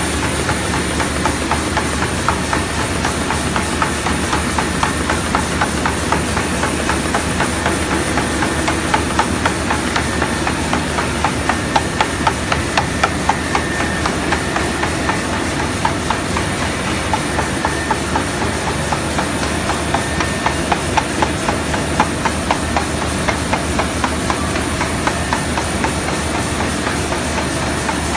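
CHM synchro-fly paper sheeter running, cutting a paper web into sheets: a steady mechanical rush with a rapid, regular clicking about three times a second.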